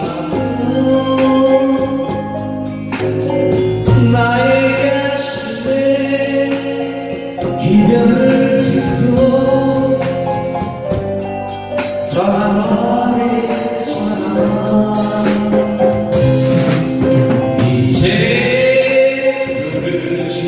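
Live band music from keyboard and drum kit, with sustained chords and a steady cymbal beat.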